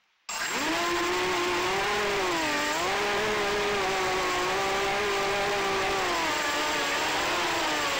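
FPV racing quadcopter's brushless motors starting abruptly just after a brief silence and whining steadily as it lifts off the grass and flies low, the pitch dipping twice with the throttle, once in the middle and again near the end.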